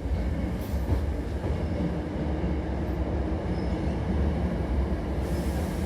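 Hankyu electric train running, heard from inside the carriage: a steady low rumble of motors and wheels on the rails. A faint hiss joins near the end.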